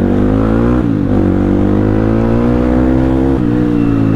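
CX300C motorcycle engine with its dB killer removed, exhaust sound unbaffled, pulling under acceleration: the revs climb, dip sharply about a second in, climb again and drop near the end.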